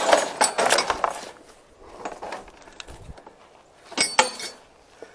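Metal clinks and rustling as a strap is hooked and pulled tight over a tarp on a pop-up camper. The handling is busy in the first second, goes quieter, then a few sharp clinks come about four seconds in.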